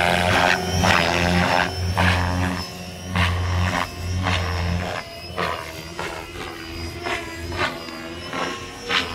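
Gaui X5 electric RC helicopter flying close by: a low drone from the motor and rotor, with the main rotor whooshing in repeated surges about one to two times a second as it manoeuvres. The low drone drops away about five seconds in, leaving the fainter whooshing surges.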